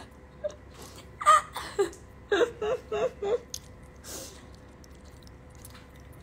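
A young woman laughing: a breathy burst a little over a second in, then a run of about five quick pitched laughs.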